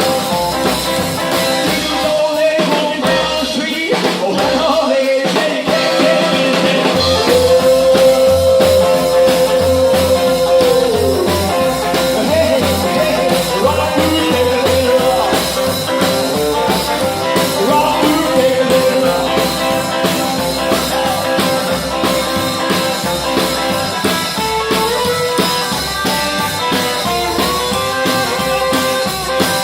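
Rockabilly band playing live, a stretch without sung lyrics: a lead instrument holds long, bending notes over a steady bass and drum beat.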